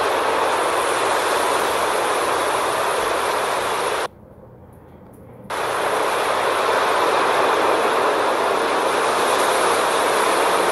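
Steady rushing noise of surf and wind on a beach. It cuts out abruptly for about a second and a half about four seconds in, then resumes.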